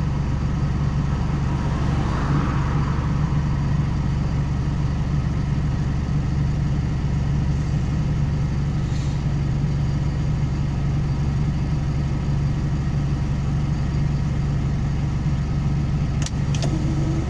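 Truck's diesel engine idling steadily, heard from inside the cab, with a low even hum. Two brief clicks near the end.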